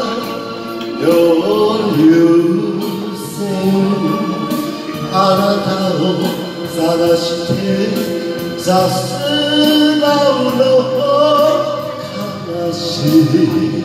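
Man singing an enka ballad into a karaoke microphone over a backing track, his voice held and bending in long sung lines.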